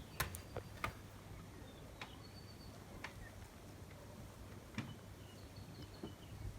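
Quiet jungle morning ambience: a few faint, short, high bird chirps, with several sharp clicks scattered among them.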